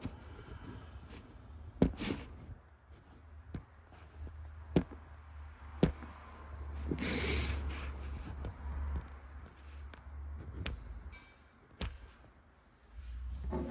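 A few separate sharp knocks and taps, about six spread across the span, the loudest about two seconds in. There is a short hiss about seven seconds in and a low steady hum underneath.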